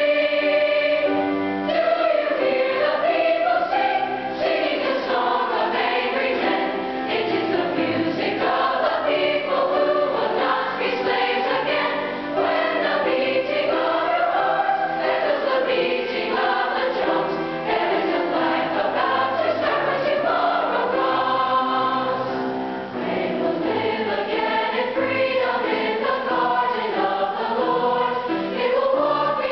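Large mixed choir of boys' and girls' voices singing a continuous piece with grand piano accompaniment.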